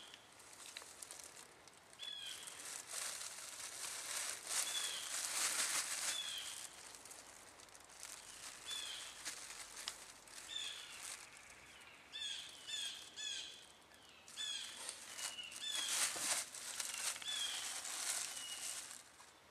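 A thin plastic bag crinkling and rustling in handfuls as squirrels are stuffed into it, in repeated bouts that are loudest about a third of the way in and again near the end. A bird gives short, high chirps throughout, several in quick succession in the later part.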